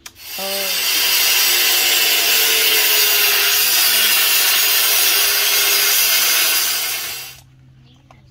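Handheld angle grinder cutting through a metal pipe: a loud, steady grinding hiss that builds up within the first second, holds for about seven seconds, and stops near the end.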